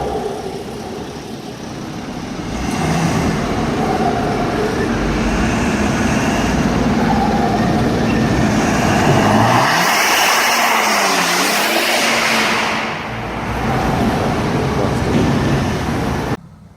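Turbocharged car engine revving, with a loud hissing rush of turbo flutter as the revs dip and pick up again about ten seconds in. The sound cuts off abruptly near the end.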